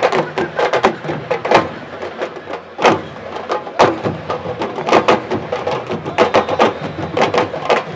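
Sabar drums played in a quick, irregular rhythm of sharp stick-and-hand strokes, with voices underneath.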